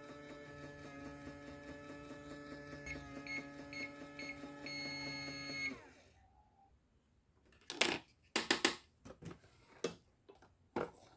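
Toy microwave running with a steady electronic hum, a few short beeps and then a longer beep; the hum cuts off about six seconds in. Then sharp plastic clicks and knocks as the toy's door is opened and handled.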